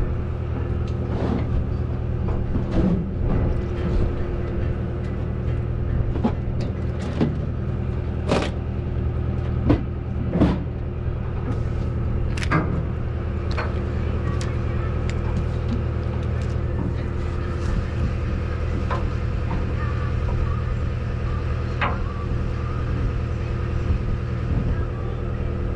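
A party fishing boat's engine running steadily with a constant low drone, with scattered knocks and clicks over it, the loudest about ten seconds in.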